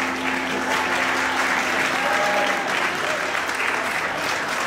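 Audience applauding steadily, with a few voices calling out about two seconds in.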